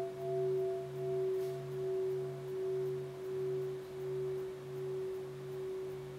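Sustained pure tones from a sound-installation soundscape. A low tone throbs in even pulses a little faster than once a second under a steady higher tone. A faint third tone dies away partway through and the whole sound slowly fades.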